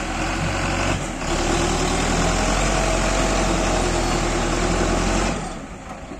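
Belarus MTZ-510 tractor's diesel engine working hard under load as it pulls away with a trolley heaped with soil, blowing black smoke. The engine note gets louder a little over a second in and holds steady, then falls away sharply about five seconds in.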